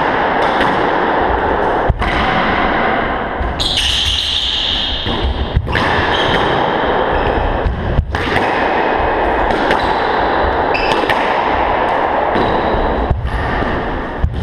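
Squash rally: sharp smacks of the ball off the racket and the court walls every second or two, with shoes squeaking briefly on the hardwood floor.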